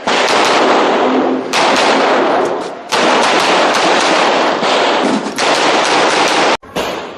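Handgun shots fired in quick strings during a practical shooting stage, each crack echoing so the strings run together. The sound cuts off abruptly near the end.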